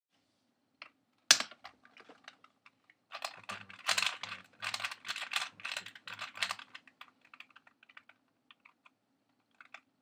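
2x2 puzzle cube being turned fast in the hands: rapid plastic clacking of the layers, densest in the middle and thinning to scattered clicks near the end. A single sharp click comes about a second in, and a faint steady hum runs underneath.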